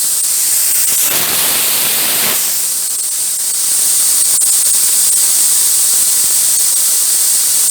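Compressed air hissing steadily out of an open air hose, bleeding down an air compressor and its piggy-backed auxiliary tank. The hose runs straight off the tank with no water trap or filter, through a regulator set to about 40 psi to match a paint gun's draw.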